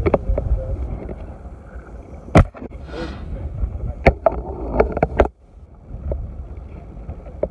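Wind rumbling on the microphone in a small boat, broken by several sharp clicks and knocks about two to five seconds in as a spinning rod and reel is handled right next to the camera.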